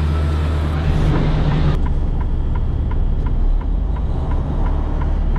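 A steady low machine hum, then, after a cut about two seconds in, the cab of a Freightliner Cascadia semi truck: the diesel engine running as a low drone while the turn signal clicks about two and a half times a second.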